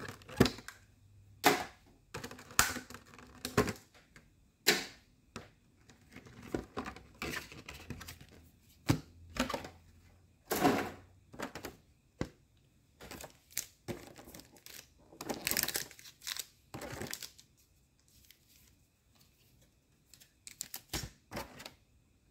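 Cardboard box packaging and trading cards being handled: irregular taps, light thunks and brief rustles as the contents come out and cards and booster packs are set down on a playmat, with a short lull near the end.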